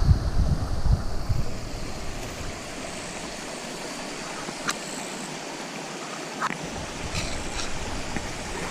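Steady rush of water flowing in at a stream inlet. Wind buffets the microphone for the first second or so, and there are a couple of faint clicks later on.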